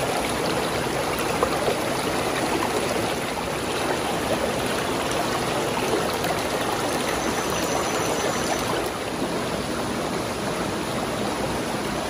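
Mountain stream running over rocks, a steady rush of flowing water.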